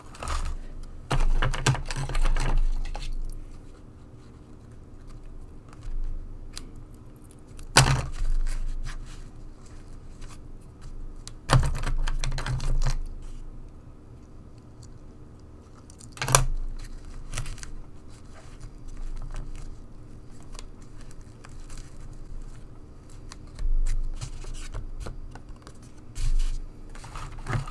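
Close paper-crafting handling sounds: card stock and ribbon rustling and sliding on the craft mat, with scissors snipping ribbon and a few sharp clicks and taps at irregular moments.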